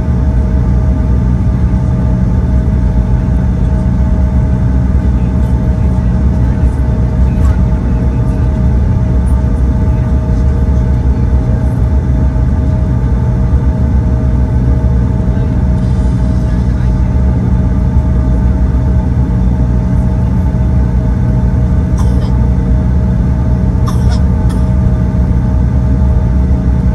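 Cabin noise of a Bombardier CRJ-900 taxiing, its rear-mounted GE CF34 turbofans running at low power: a steady low rumble with a steady whine over it. A couple of faint clicks come near the end.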